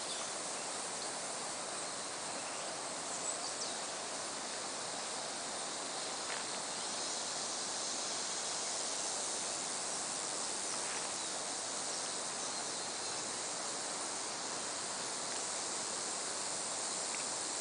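Steady outdoor forest ambience: an even hiss strongest in the high range, of the kind an insect chorus makes, with a few faint short chirps.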